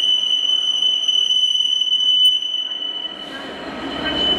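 Wheels of a freight train hauled by a Class 66 diesel locomotive squealing on the rails: a steady, high-pitched squeal. The low rumble of the passing train grows again near the end.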